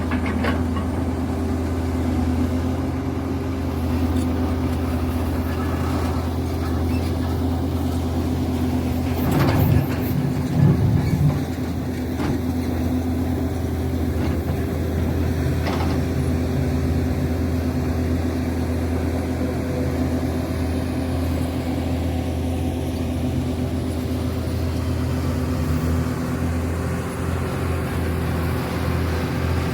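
Link-Belt hydraulic excavator's diesel engine running steadily, with a louder stretch and a few knocks about ten seconds in.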